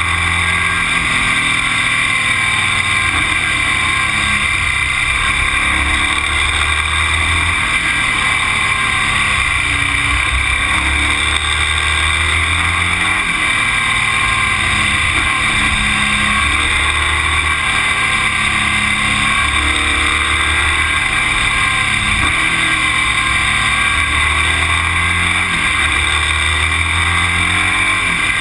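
A road vehicle driving along with a steady rush of engine and wind noise on a mounted action camera. The low engine note swells and drops every few seconds.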